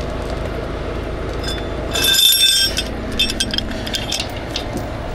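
Shattered glass clinking: one bright ringing clink about two seconds in, then scattered small clinks and rattles, over an engine running steadily in the background.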